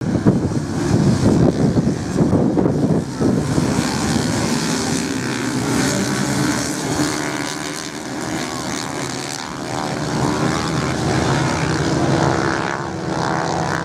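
A pack of motocross bikes racing on sand, many engines buzzing and revving at once. The sound is loudest in the first few seconds, and later the pitch climbs and drops as the riders accelerate and shift.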